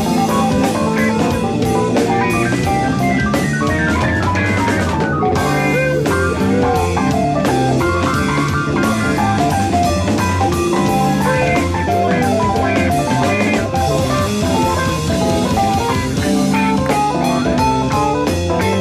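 Live jazz-rock band playing an instrumental passage: electric guitar lines over a drum kit and electric bass.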